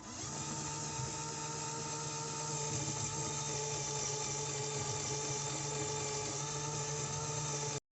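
A small motor running steadily with a constant whine of several fixed tones over a low hum, cutting off suddenly near the end.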